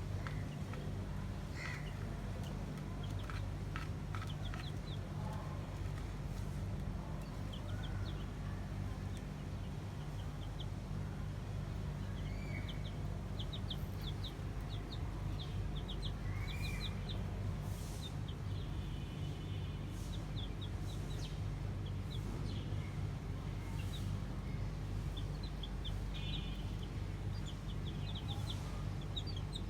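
Chickens calling: many short high peeps scattered through, and a couple of longer rising-and-falling calls, over a steady low hum.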